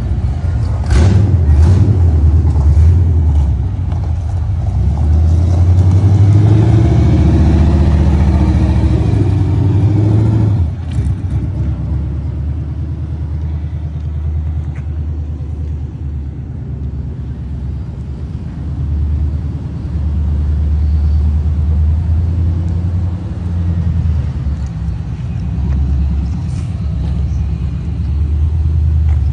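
1997 Camaro Z28's LT1 small-block V8 running on open headers: a loud, deep exhaust rumble as the car drives off. It swells for several seconds, eases about ten seconds in, then carries on more evenly.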